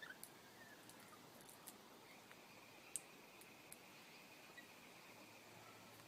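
Faint scattered clicks of rainbow lorikeets' beaks working seed on a wooden feeder tray, the sharpest about three seconds in. A thin, steady, high whistle runs quietly from about two seconds in to near the end.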